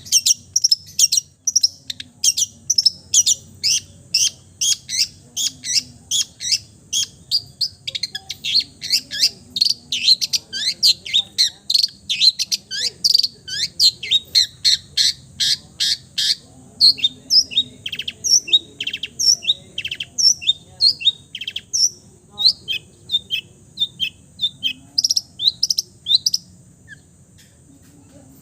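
Long-tailed shrike (cendet) singing a rapid run of short, sharp, high chirps, about three or four a second, part of a song full of mimicked calls of other birds; the song stops about two seconds before the end.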